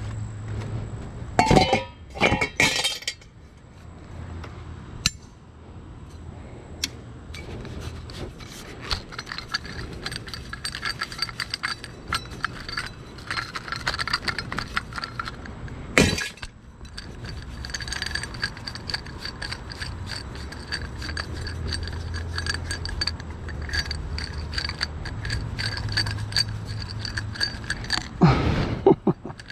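Repeated clinking and rattling of hard objects, with a few loud knocks, over a low steady hum.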